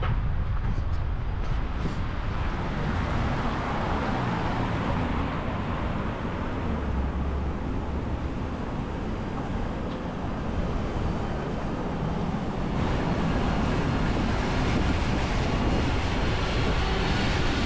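Steady city road traffic: cars passing on a nearby street with a continuous low rumble of engines and tyres.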